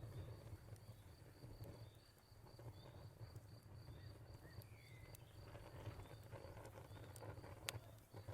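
Faint crackling fire with scattered sharp pops, the loudest about three-quarters of the way through, over a low steady rumble, while a cricket chirps in a steady high-pitched rhythm. A short bird note sounds about halfway through.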